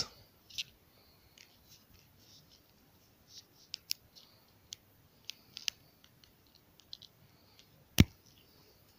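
A kitten's claws and teeth catching on a cardboard chew stick bound in twine: scattered faint light clicks and scratches, busier in the middle. One sharp knock stands out near the end.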